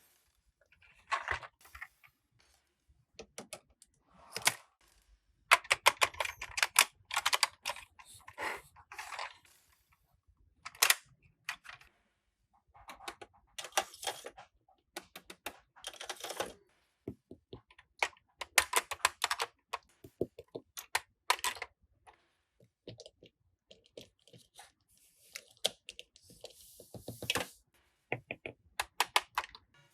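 Hard plastic parts of a Peppa Pig tree house toy play set being handled, tapped and clicked together, in quick irregular clusters of clicks separated by short pauses.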